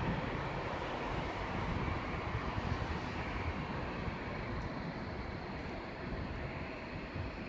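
Jet airliner on its landing approach passing close by, its engine noise slowly fading, with wind buffeting the microphone.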